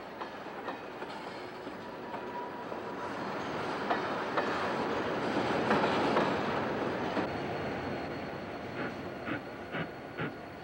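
Train rolling past on the rails close by, its wheels' rumble swelling to a peak about six seconds in and then fading. Near the end, a regular clacking of about three strokes a second.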